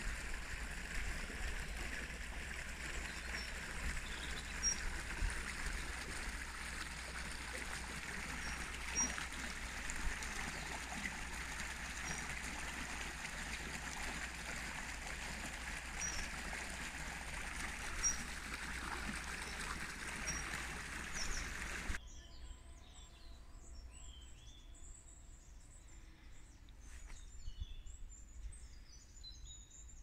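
A steady rushing noise with faint, high, spaced bird calls over it cuts off abruptly about two-thirds of the way through. Quieter birdsong with chirps and trills follows.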